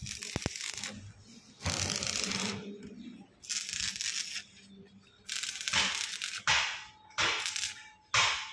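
Stick (arc) welding on steel checker plate: the arc crackles and sizzles in several short runs of about a second each, broken by brief pauses as the welder stops and restarts the rod.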